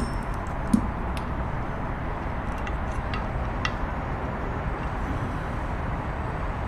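Steady low background rumble, with a soft thump and a few faint, light clicks as small metal sewing-machine parts are handled.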